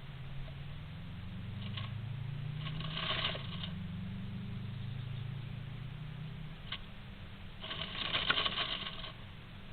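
Bird moving about inside a nest box: bursts of rapid scratching and tapping, the longest about eight to nine seconds in, over a low hum that fades out about six and a half seconds in.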